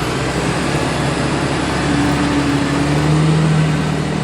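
Sound effect of a city bus engine running with a steady low drone and street noise as the bus drives away.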